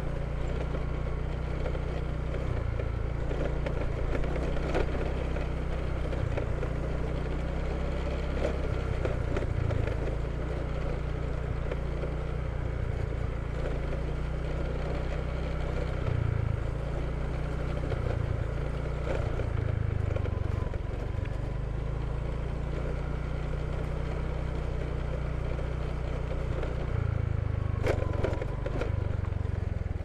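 Small motor scooter being ridden: steady engine and road noise under heavy wind rumble on the microphone.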